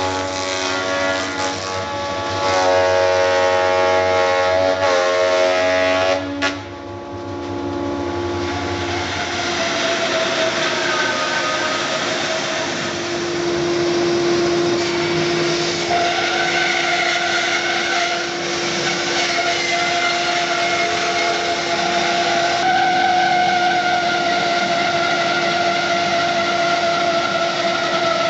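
Woodworking jointer cutterhead running and planing the bark side of a walnut log, with a steady machine tone that stops about six seconds in. After that, a Hammer N4400 bandsaw runs with a steady hum while its blade resaws the walnut log into boards.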